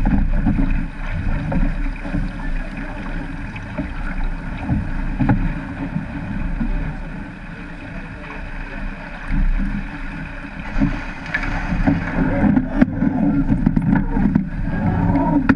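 Wind buffeting the microphone of a camera mounted on a surf boat, over the rush of water and breaking surf as the crew rows through the waves, with a few sharp knocks.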